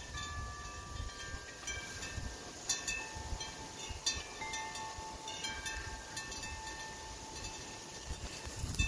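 Chimes ringing: several clear tones struck at irregular moments, each ringing on for a second or more and overlapping the next.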